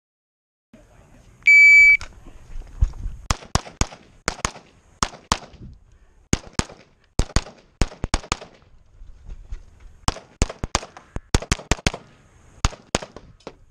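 A shot timer's start beep, a single steady high tone lasting about half a second, then an EMG Customs .38 Super Comp competition pistol firing about two dozen rapid shots, mostly in quick pairs with short pauses between target arrays, as the shooter runs a USPSA stage.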